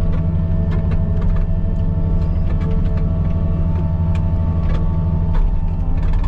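Excavator diesel engine running under load, with the hydraulic Blue Diamond brush-cutter head whining as it cuts through tall dry grass, heard from inside the cab. Scattered sharp ticks of thrown debris hit the cab, and the whine changes pitch about five seconds in.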